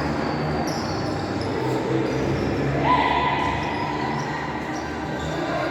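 Indoor futsal game in an echoing sports hall: the ball being kicked and bouncing on the court, short squeaks of shoes, and players calling out.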